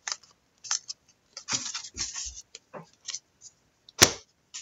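Trading cards and card packs being handled: scattered short rustles and clicks, with one louder sharp click about four seconds in.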